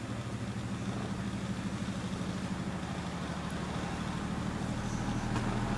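Domestic cat purring: a steady low rumble with a fast, even pulse.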